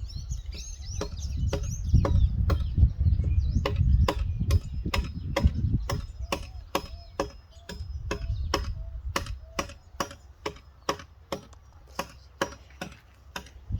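Short high bird chirps at the start, then a long, even series of sharp clicks, about three a second, with wind rumbling on the microphone for a few seconds in the middle.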